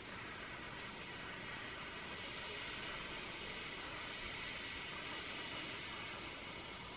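A woman's long, steady hiss of breath pushed out between her teeth: the 'sss' healing sound of the lungs in Qi Gong, made on one slow exhalation.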